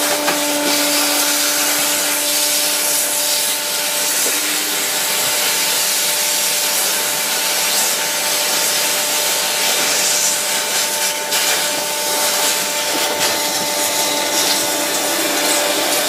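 AquaVac wet-dry vacuum cleaner running steadily with a motor whine, its hose held to a washing machine's drain-filter opening and sucking out the standing water.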